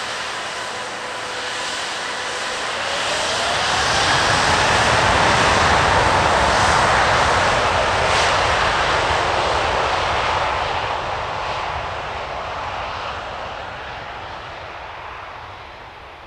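Airbus A350-900's Rolls-Royce Trent XWB turbofans running as the airliner taxis past on the ground. A whine rises in pitch about three seconds in, the engine noise swells as the aircraft comes closest, then fades steadily as it turns away.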